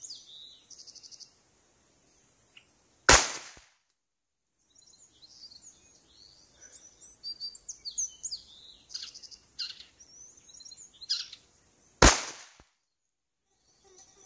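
Two single shots from a Rock Island 1911 pistol in 9mm, about nine seconds apart, each followed by a second or so of dead silence. Birds chirp in the background between the shots.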